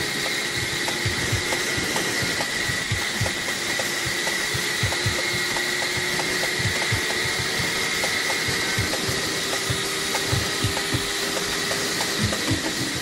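Motorcycle running at a steady cruising speed, with wind rushing and buffeting over the bike-mounted camera's microphone and a steady high whine.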